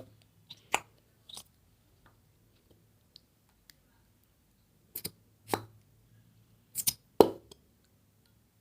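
A few scattered clicks and knocks from handling a plastic bottle of craft glue and a bowl while getting the glue out. They come in two clusters, a handful near the start and a louder group in the second half, over a faint steady hum.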